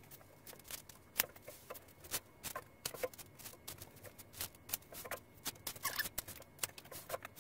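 Handling noises: a string of irregular light clicks and short rustles as felt on a poker table is pushed and smoothed by hand and a tape measure is handled.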